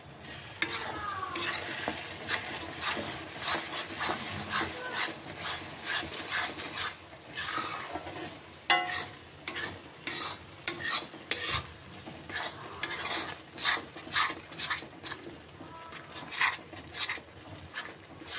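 Spice masala with mustard paste sizzling as it fries in oil in a kadhai, stirred with repeated irregular scraping strokes of the utensil against the pan. A sharp knock on the pan about nine seconds in.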